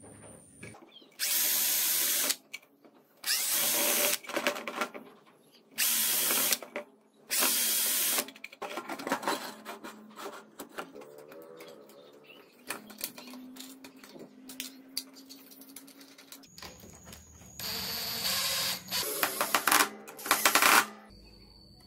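Power drill driving screws through metal hinges into wood, run in short bursts of about a second each: four in the first eight seconds and two more near the end. Clicks and handling clatter fall between the bursts.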